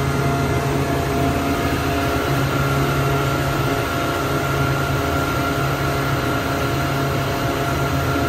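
Suzuki 200 outboard motor running steadily at speed, with the rush of water from the boat's wake.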